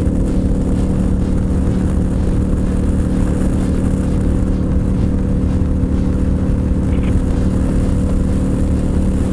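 Cruiser motorcycle engine running at a steady highway cruise, a constant hum that holds one pitch throughout, under low rumbling wind and road noise.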